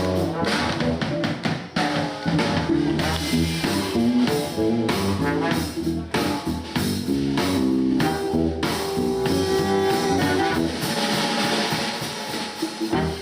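Band music with drum kit and guitar: an instrumental jazz passage with busy drumming and sustained notes.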